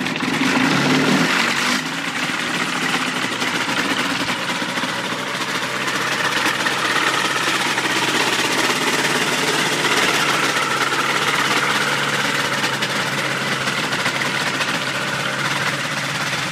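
Raven ultralight aircraft's engine running steadily just after being pull-started; its pitch settles down during the first second or two.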